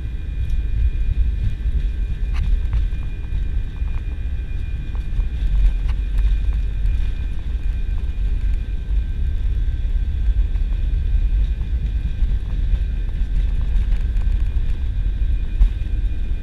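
Airbus A320 taxiing, heard from inside the cabin: a steady deep rumble from the engines and wheels, with a faint, even high engine whine over it and a few small clicks.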